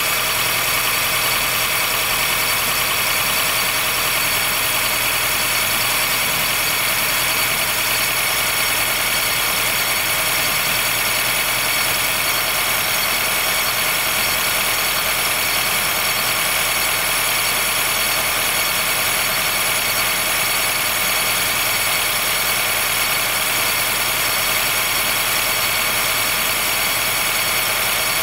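Honda Fit Hybrid (GP5) with a steady high-pitched squealing, creaking noise over the low hum of the running car. The noise comes on only in cold weather, below about 10 °C, and fades once the car has warmed up. With no warning lights showing, the dealer judged it harmless.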